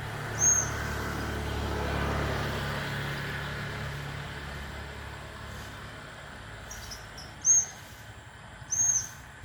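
Three short high chirps from a lovebird: one about half a second in and two near the end. Under them, the low hum of a passing motor vehicle swells and then fades over the first few seconds.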